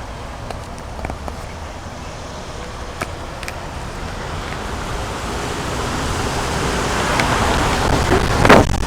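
Car driving, with steady road and tyre noise that grows louder over the second half and a brief louder rush near the end.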